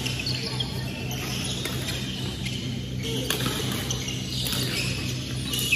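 Badminton rally on a wooden court: a few sharp racket hits on the shuttlecock, the loudest near the end, with short squeaks of shoes on the court floor over a steady low hum.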